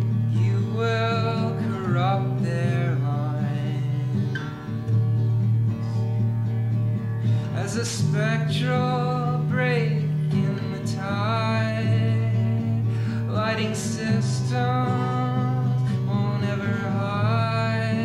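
A lo-fi song: a voice singing over guitar, with held low notes that change every couple of seconds.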